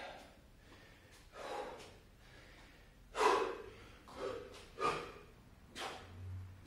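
A man breathing hard from the effort of burpees with push-ups: a string of forceful breaths, the loudest about three seconds in.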